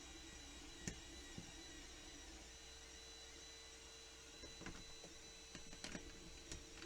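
Near silence: faint room tone with a steady hum and a few light clicks, one about a second in and a cluster between four and a half and six and a half seconds.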